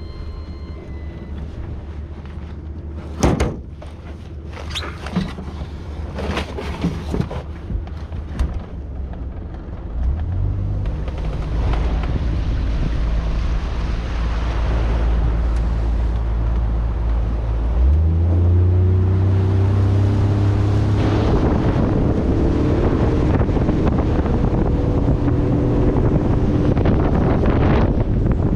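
Boat engine, first a few knocks, then the engine's low steady note coming in about ten seconds in. Near the middle it revs up with a rising pitch and runs on at speed under a rushing noise of wind and water.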